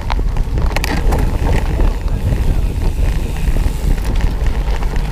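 Wind buffeting the onboard camera's microphone and a steady low rumble from a cyclocross bike riding over bumpy grass, with a few sharp rattling clicks in the first second.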